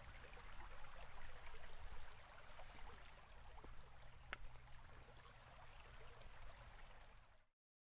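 Faint flowing water of a shallow river running over stones, an even rushing hiss. It cuts off abruptly near the end.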